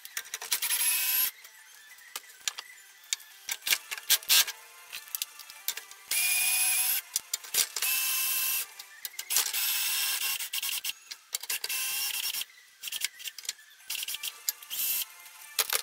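Small electric power tool whirring in several short bursts, the longest about three seconds, with sharp clicks and knocks of metal parts in the gaps between.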